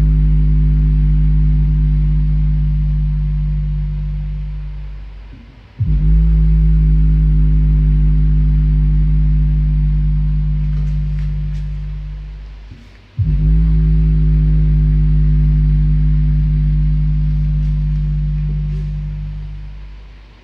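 A 500-watt active subwoofer playing music: deep bass notes, each starting sharply and fading away slowly over about seven seconds, a new one about six seconds in and another about thirteen seconds in. The subwoofer is working properly again, its relay switching on after the transistor and the preamp's regulator IC were replaced.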